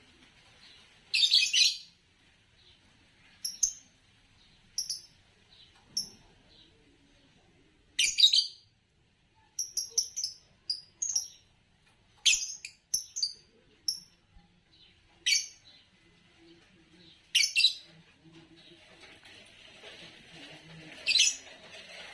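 A pair of Fischer's lovebirds chirping: short, sharp, high chirps, some single and some in quick clusters, at irregular intervals.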